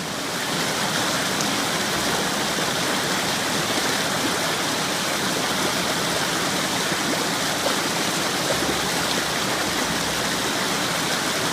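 Running water rushing steadily, a continuous even splashing hiss like a stream or small cascade.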